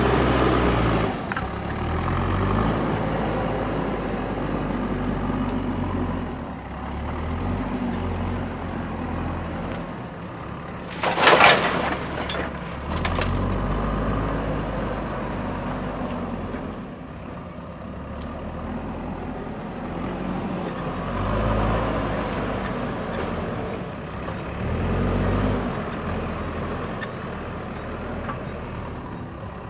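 Diesel engine of a JCB backhoe loader working, revving up and down repeatedly. A loud hiss comes about eleven seconds in, with a shorter one about two seconds later.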